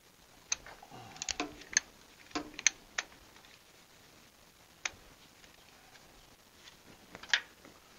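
Irregular sharp metallic clinks and taps of a wrench and socket being fitted to the seized, rusted spark plugs of a 1924 Fordson Model F engine, a few with a short ring. A cluster comes one to three seconds in, a single clink near five seconds, and the loudest near the end.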